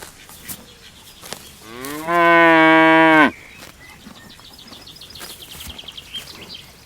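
A cow mooing once: one long low call, rising at the start and then held level for about a second and a half, about two seconds in. Faint bird chirping follows.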